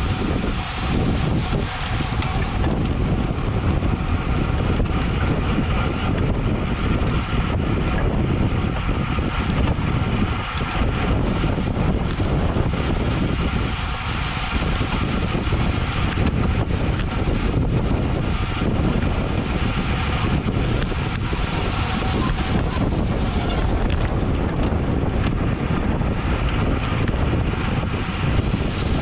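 Steady wind buffeting the microphone of a camera on a road bike ridden at racing speed.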